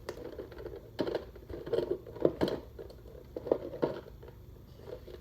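Handling of a plastic toy vending machine: a series of light plastic knocks and clicks, several in quick succession around the middle, as a coin is put in and the machine is worked.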